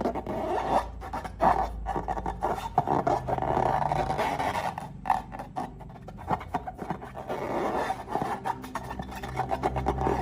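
Slime being stirred and scraped, a continuous rubbing and scraping with many irregular small crackles.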